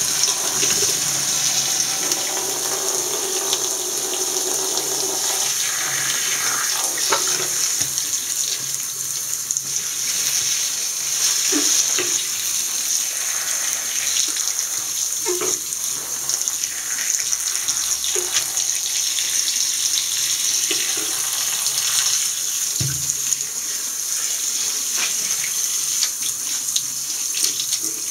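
Bathroom tap running full into a ceramic washbasin, the stream splashing over a burnt shoe as it is rinsed. A few light knocks of the shoe being handled in the basin.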